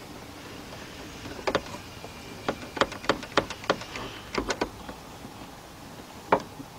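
A quick run of light clicks and knocks, about a dozen in two seconds or so, then one more near the end, as parts are handled while the convertible top's hydraulic cylinder is being fitted.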